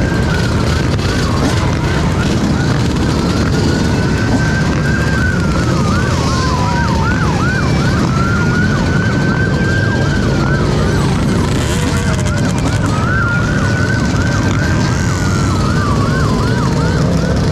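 Police siren cycling between a slow rising-and-falling wail and a fast yelp of about four chirps a second, over a steady low rumble.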